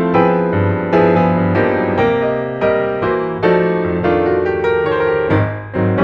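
Background solo piano music: a slow, gentle piece of chords and melody notes, each struck and left to fade.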